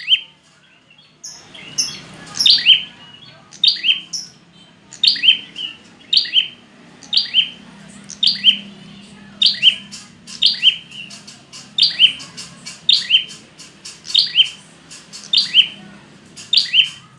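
Prinia (prenjak) song: loud, sharp chirps, mostly in pairs, each falling in pitch, repeating about once a second after a brief pause at the start. A faint low hum runs underneath.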